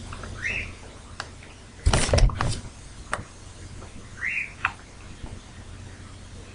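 A 13-day-old baby hiccuping: two short, high squeaks that rise in pitch, about half a second in and again a little after four seconds. A louder rustle and thump comes around two seconds in.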